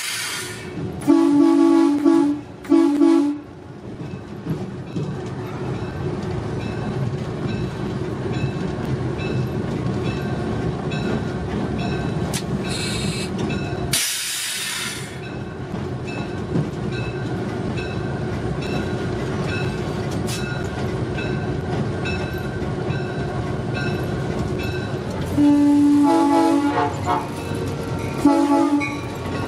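Air horn of an EMD GP9 diesel locomotive sounding in a few short blasts near the start and again near the end, heard from inside the cab. Between the blasts the locomotive's diesel engine and its rolling wheels run steadily.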